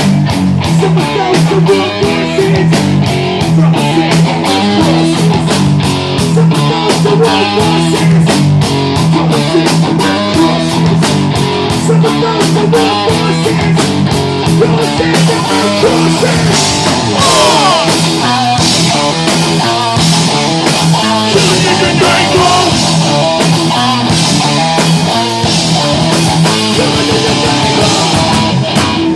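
Live rock band playing a loud instrumental passage: electric guitar riff over bass and steady drum hits, with sliding guitar notes about halfway through.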